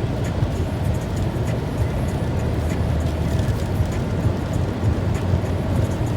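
Car driving at motorway speed on a wet road: a steady low rumble of tyre and road noise.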